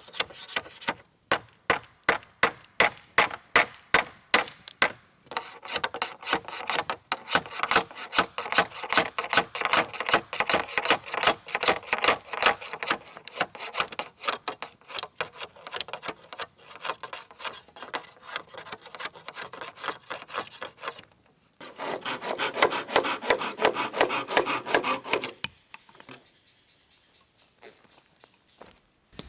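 Hand saw cutting bamboo in rhythmic back-and-forth strokes, about two to three a second at first, then quicker and closer together, with a fast final run before it stops a few seconds before the end.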